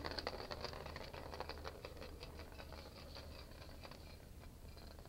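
Small plastic ball rolling around the plastic track of a circular cat scratcher toy: a quick run of light rattling clicks that thins out and fades as the ball slows.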